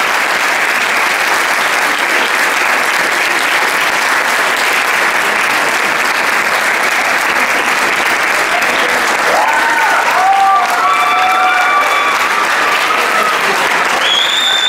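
Audience and performers clapping: steady, sustained applause.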